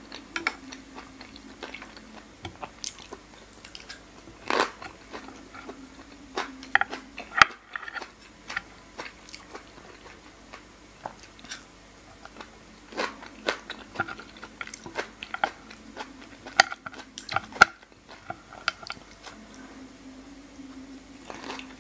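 Close-miked eating sounds: wet chewing, lip smacks and sharp mouth clicks as a person chews soy-marinated raw salmon and noodles. A faint steady hum sits underneath.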